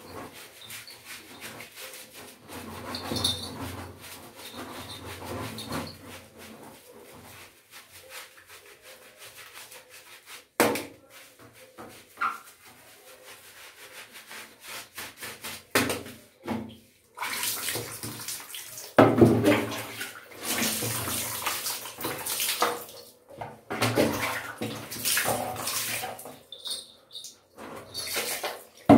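Water poured by hand from a mug over a wet cat, splashing onto a tiled floor in repeated bursts through the second half. The first half holds quieter handling sounds as the cat's wet fur is washed.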